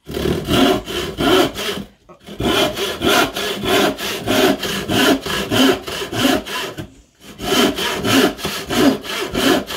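Modern hand panel saw cutting a board in quick back-and-forth strokes, about three a second, with two short breaks where the cut stops and starts again. The saw's grabby teeth catch, and its thin blade bends in the cut.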